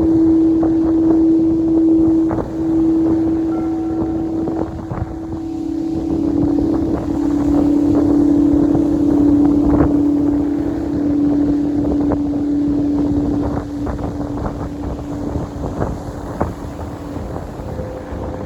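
Wind buffeting the microphone, under a steady held tone that steps slightly lower about six seconds in and fades near the end.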